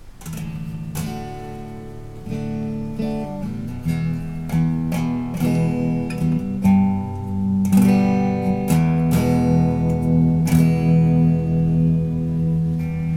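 Guitar playing clean strummed and picked chords, each left to ring, with a new chord about every second. The Rand() random tremolo pedal is bypassed, so the tone is dry.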